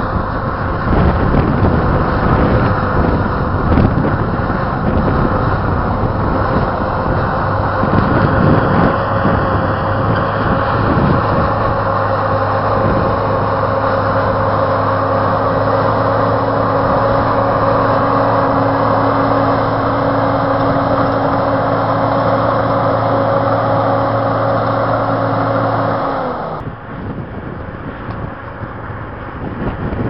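Diesel engine of a crawler bulldozer working, running loud and steady with a droning note. Gusty wind buffets the microphone in the first several seconds. The engine sound drops off suddenly near the end.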